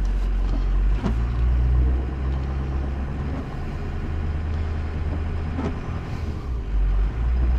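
Inside a moving vehicle's cab: steady low engine and road rumble with an even hiss over it.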